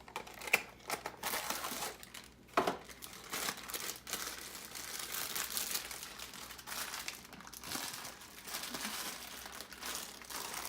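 Plastic bag crinkling and crackling steadily as it is squeezed and pulled at in an attempt to tear it open, with a few sharper snaps in the first few seconds.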